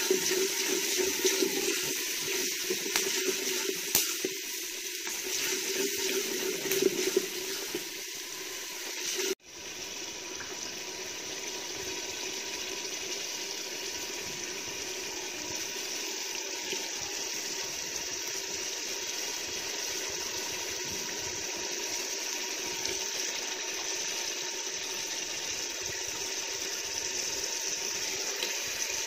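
Masala and gravy sizzling and bubbling in an aluminium cooking pot over a wood fire, a steady hiss, with a few sharp knocks in the first nine seconds. The sound cuts off abruptly about nine seconds in and resumes as a steadier sizzle while raw chicken cooks in the gravy.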